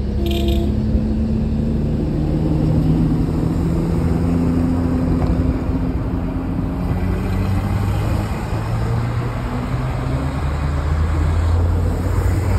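Car engine and tyre noise on a paved road, heard from inside the moving car: a steady low rumble, with the engine note rising and falling a few times as the speed changes.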